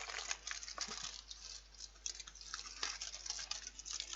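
Wrapper of a small chocolate bar crinkling and crackling as it is torn open by hand, a quick, irregular run of small crackles.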